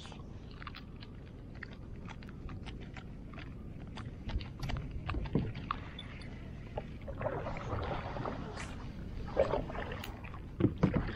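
A scatter of short clicks and light splashes at the water around a fishing kayak, where small snook are striking bait at the surface, with a few louder splashy patches in the second half.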